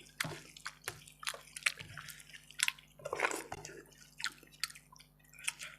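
Close-miked wet eating sounds: a run of short, sticky smacks and squelches from chewing curried food, with a denser, louder patch about three seconds in.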